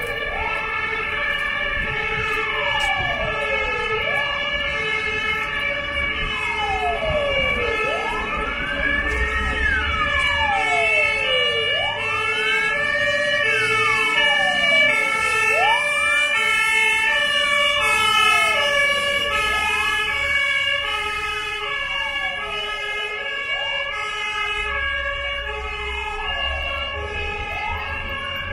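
Sirens of two fire engines sounding together. One is a slow wail rising and falling about every four seconds; the other is a quicker stepping tone. A low traffic rumble runs underneath.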